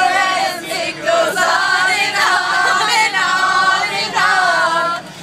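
A group of teenagers singing loudly together, several voices overlapping.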